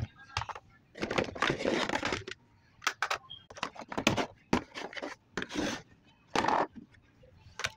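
Makeup compacts and small cosmetic cases being picked up out of a drawer and knocked against each other: a run of sharp clicks and knocks, with two longer stretches of handling noise, about a second in and again past the six-second mark.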